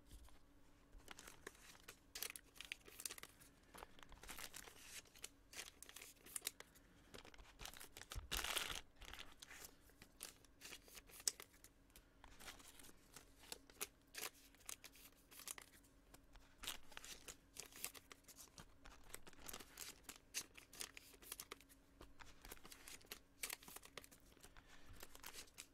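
Faint crinkling and tearing of trading-card packaging, with scattered light clicks from cards being handled. The loudest rustle comes about eight seconds in.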